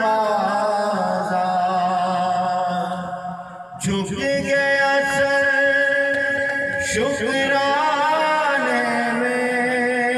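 A man singing a naat, an Urdu devotional poem in praise of the Prophet, into a microphone in long, held, ornamented phrases, with a short breath break near four seconds.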